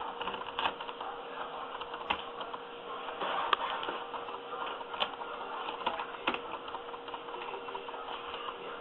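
Carpet being cut out by hand for a patch repair: a run of scratchy, crackling cutting through the pile and backing, with sharp clicks now and then, the loudest about three and a half seconds in. A faint steady hum sits underneath.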